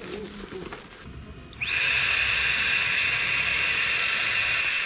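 Electric air pump inflating a sleeping mat: it spins up about a second and a half in, then runs steadily with a high whine and a hiss of rushing air.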